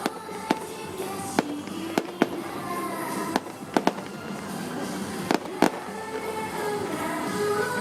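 Aerial fireworks bursting in a string of sharp bangs, about ten at irregular intervals, over continuous music.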